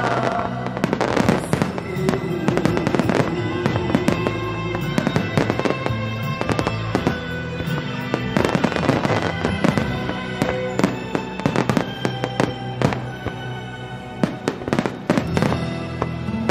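Aerial fireworks bursting and crackling in rapid, overlapping volleys, with music playing alongside; the reports come thickest in three clusters, near the start, around the middle and near the end.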